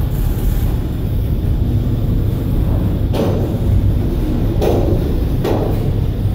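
Double-stack container train rolling past at close range: a steady heavy rumble of steel wheels on rail, with three sharp clunks in the second half.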